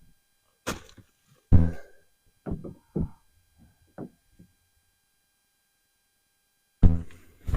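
A few separate knocks and thumps of gear being handled and set down while a storage container is emptied; the loudest thump comes about one and a half seconds in. After a dead-silent gap, a louder handling noise starts near the end.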